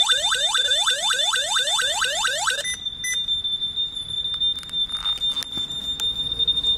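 Alarm triggered by smoke on the SSG T60 smoke sensor: a siren whooping in fast rising sweeps, about five a second, over a steady high-pitched tone. About two and a half seconds in the whooping stops abruptly and the steady tone sounds on alone, with a few sharp clicks.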